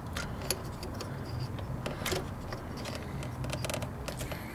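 Scattered small clicks and light metallic taps of ignition-coil parts, connectors and tools being handled and fitted by hand, over a faint steady low hum.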